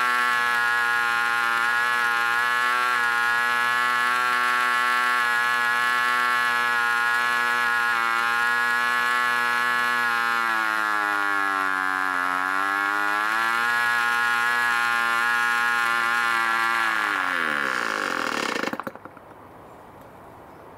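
D-C Tornado Twin 5 cc two-stroke boxer-twin glow engine running flat out at about 7,500 rpm; its pitch sags and recovers as the needle valve is adjusted about ten seconds in. Near the end it slows steadily and stops, which the owner puts down to having leaned it out too far so that it ran hot.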